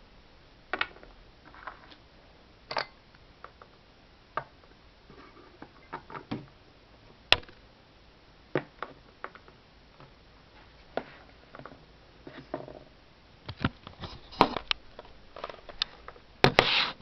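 Irregular light clicks and taps of small plastic toy figures being handled and moved on a surface, with a quick cluster of louder knocks near the end.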